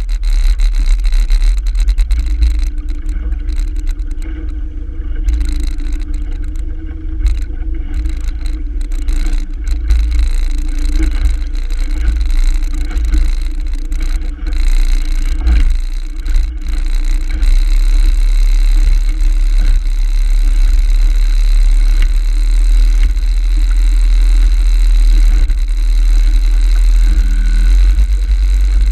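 A 35 hp Evinrude outboard motor driving a small dory at speed, with heavy wind rumble on the microphone and water rushing past the hull. It gets louder and steadier about halfway through as the boat comes up to speed.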